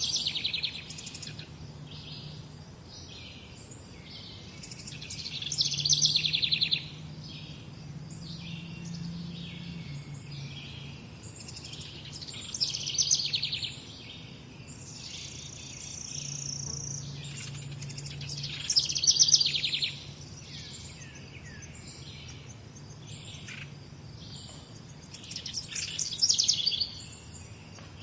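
A chorus of songbirds singing and chirping in the morning. A louder, rapid trilled phrase comes back about every six seconds over a steady background of other calls.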